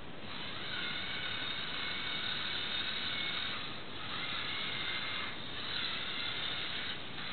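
Small electric motor of a LEGO Technic model car whining steadily as it drives the car through plastic gears. It starts about a third of a second in and drops out briefly three times.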